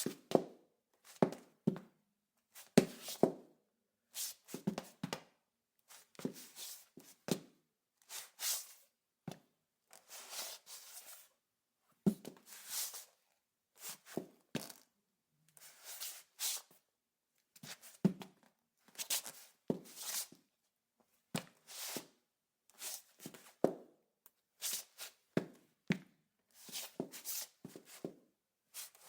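Women's high heels walking on a tile floor: sharp heel clicks mixed with scuffing slides, in uneven runs of steps with short pauses between.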